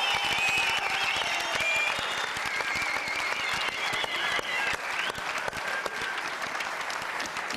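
Studio audience applauding and cheering, with dense clapping that eases off a little toward the end.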